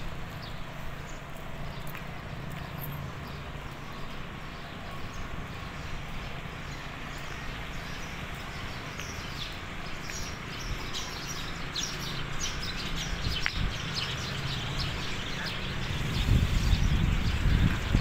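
Steady road noise heard from a moving bicycle, with a low hum. Birds chirp from about halfway through, and a louder rumble of wind or passing traffic comes in near the end.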